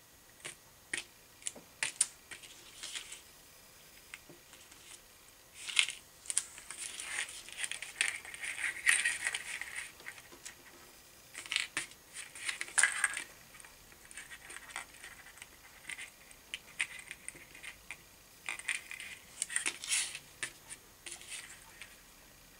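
Irregular light clicks and clinks of a small wire fishing rig's snap swivels, beads and spinner blade being handled and clipped together on a tabletop, with short bursts of scratchy rustling.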